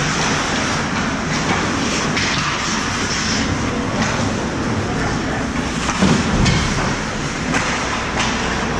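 Ice hockey play heard from a camera on the goal net: skate blades scraping the ice under a steady wash of rink noise, with several sharp clacks of sticks and puck.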